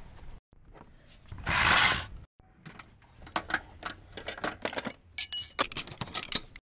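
A brief rushing noise about a second and a half in, then steel wrenches and sockets clinking against each other as a hand rummages through a toolbox drawer, a quick run of sharp metallic clinks.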